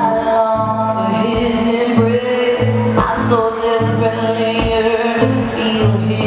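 A woman singing live at a microphone, holding two long notes with a slight waver, over a strummed acoustic guitar.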